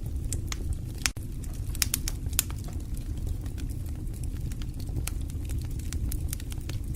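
Fire crackling: a steady low rumble of burning with irregular sharp pops and snaps scattered through it, the loudest a little over a second in and around two seconds in.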